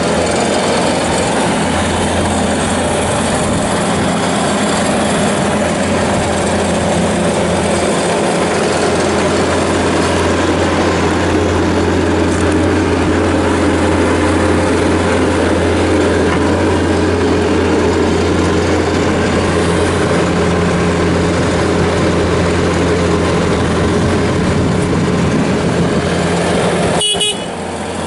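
Bobcat S590 skid steer loader's diesel engine running steadily with a constant low drone while the machine is operated. Near the end there is a sharp click, and the level drops slightly after it.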